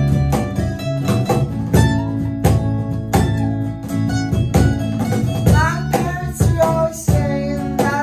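A small band playing acoustic guitars, electric bass and a cajón keeping a steady beat. A voice sings short lines in the second half.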